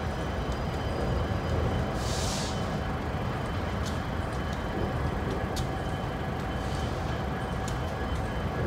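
Long, slow Union Pacific intermodal freight train rolling past: a steady rumble of the cars with occasional sharp clicks, and a brief hiss about two seconds in.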